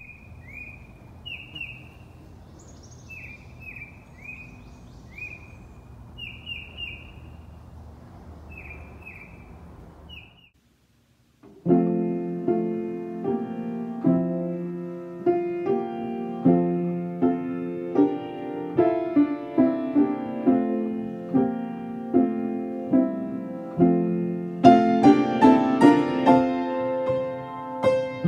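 Birds chirping for about ten seconds: short falling chirps repeated at irregular intervals over a low, steady background noise. After a brief silence, solo piano music begins and plays on, with higher notes joining near the end.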